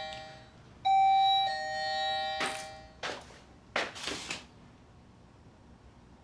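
Two-tone ding-dong doorbell chime: a higher note about a second in, dropping to a lower note and fading, with the end of an earlier chime at the start. A few short noisy sounds follow between about two and a half and four and a half seconds in.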